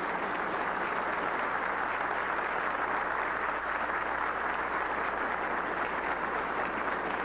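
Large audience applauding, a steady even clatter of many hands.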